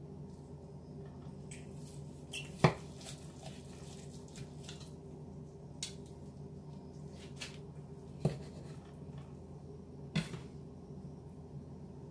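Knife clinking and tapping against a dish as a roast chicken is carved, with a few sharp clicks: the loudest about two and a half seconds in, and again around eight and ten seconds. A low steady hum runs underneath.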